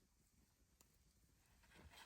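Near silence, with a faint tick just under a second in and a soft rustle rising near the end.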